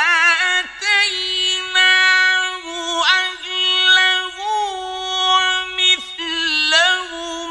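Male Qur'an reciter chanting in the melodic mujawwad style, drawing out a phrase on one high, steady note with short melismatic turns, about three times; the voice breaks off briefly about a second in and again near six seconds.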